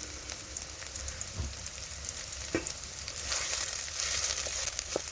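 Chopped onions sizzling and crackling in hot oil as they fry toward brown, with a spoon stirring and knocking now and then against the pot. The sizzle grows louder about three seconds in.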